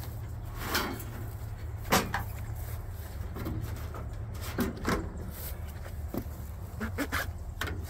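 Scattered knocks and clicks as a rod and wiring are handled against a car's bare metal floor pan, the loudest about two seconds in, over a steady low rumble.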